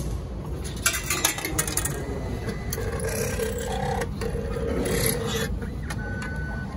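Bangkok MRT ticket vending machine working after payment: clicks and rattles, then a steady mechanical whirring with rasping spells as it issues the ticket and change, and a short beep near the end.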